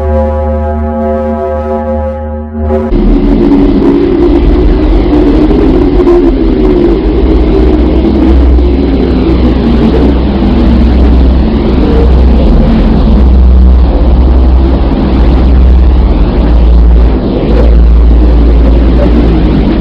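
Sonified 'space sound' audio: a steady hum with many even overtones cuts off about three seconds in and is replaced by a loud, deep, churning rumble with a swirling, whooshing texture that carries on steadily.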